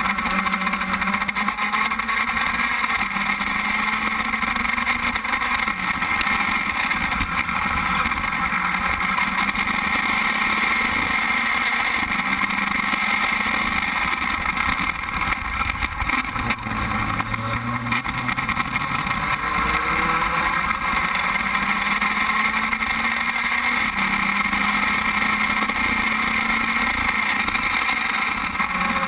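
Open-wheel race car's engine running while the car is stationary, a steady idle heard from the onboard camera, with the pitch drifting up and down slightly a few times.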